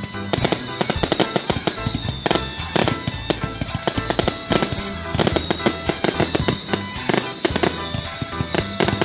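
Fireworks going off in quick, irregular bangs and crackles, several a second, with music playing loudly underneath.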